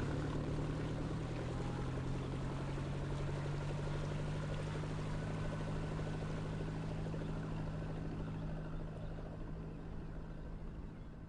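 A boat engine running steadily, a low even hum with a hiss over it, fading away over the last couple of seconds.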